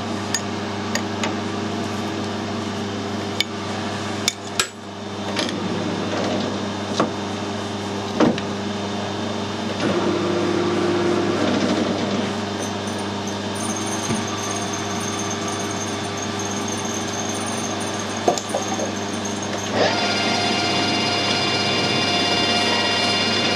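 Metal lathe in a workshop: sharp metallic clicks and knocks as the collet nut is tightened with a spanner, then the lathe spindle running with a steady motor hum. About 20 seconds in, a higher steady ringing tone joins as the cutting tool is brought to the work.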